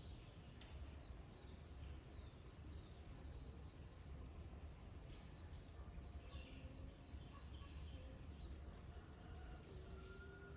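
Faint background of small birds chirping, with a steady low rumble underneath. One sharper, louder chirp comes about four and a half seconds in.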